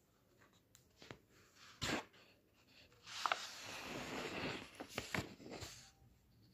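Paper pages of a book being turned: a sharp snap about two seconds in, then a longer rustle of paper with a few crisp snaps as a page is swept over in the middle of the stretch.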